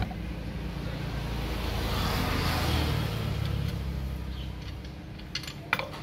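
A road vehicle passing by, its engine and tyre noise swelling to a peak about halfway through and fading away. A few sharp metal clinks come near the end.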